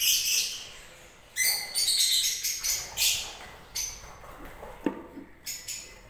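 A colony of lovebirds chirping: clusters of short, high, shrill chirps, overlapping and coming in bursts.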